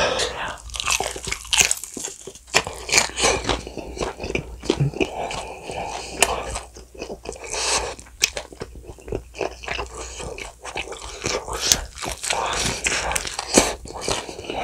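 Biting and chewing bone-in fried chicken coated in a thick, wet spicy sauce: a run of sharp, irregular bites and chewing sounds.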